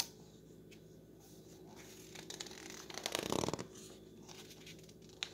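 A page of a glossy picture book being turned by hand: a paper rustle that swells about two seconds in and is loudest just after three seconds, with a short click at the start and another near the end.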